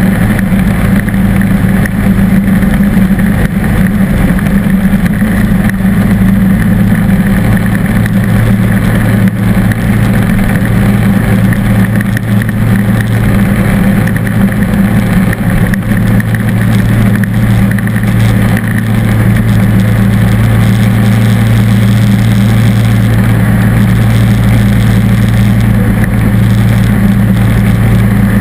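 John Deere D140 lawn tractor engine running steadily under load while driving its front-mounted snow thrower, a constant low drone close to the engine.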